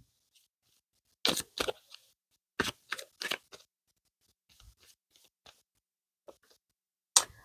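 A deck of tarot cards being shuffled by hand: short, crisp snaps of the cards in two quick clusters about a second apart, then a few faint ticks.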